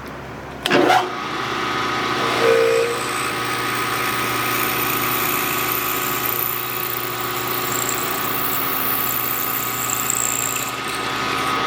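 Milling machine: a clunk about a second in, then the spindle runs with a steady whine for about ten seconds while drilling the next hole, and stops near the end.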